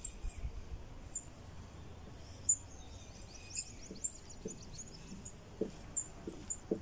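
Dry-erase marker writing on a whiteboard: faint, high, short squeaks from the marker tip as it is drawn across the board, thickest for about a second in the middle, with light taps between strokes.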